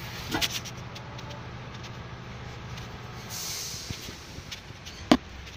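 Steady low hum of a running vehicle engine, with a brief hiss a little past the middle and one sharp click near the end.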